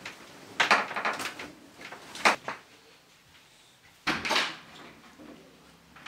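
Rustling and a few wooden knocks and clunks as someone moves about and works a door. The sharpest knock comes about two seconds in, and another clunk with a swish comes just after four seconds.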